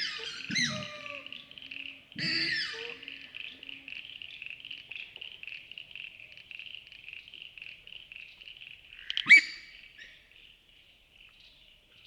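Australasian swamphen calling: squealing calls with low grunts at the start and again about two seconds in, then a single sharp squeak about nine seconds in, the loudest call. A steady pulsing chorus runs underneath and fades out near the end.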